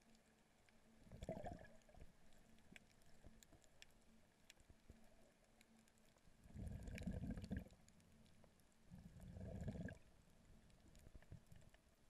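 Faint underwater sound heard through a GoPro's waterproof housing: low swells of water rushing past, about a second in and twice more in the second half, over scattered faint clicks.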